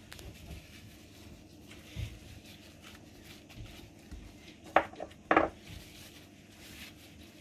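Kitchen dishes handled during food preparation: a dull knock about two seconds in, then a sharp clink near five seconds and a louder clatter just after it, over faint background.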